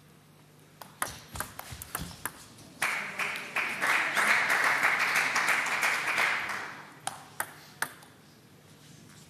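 Table tennis rally: a quick run of ball clicks off bats and table. Then a few seconds of audience applause, and near the end a few lone ball bounces.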